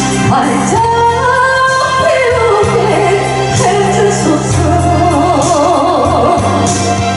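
Music: a singer holding long, wavering notes over a backing track with steady bass notes.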